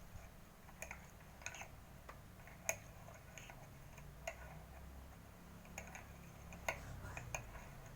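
Spoon clinking and tapping against a glass while a tamarind and palm-sugar drink is stirred: faint, irregular light clicks, the sharpest about two and a half and six and a half seconds in, over a low steady hum.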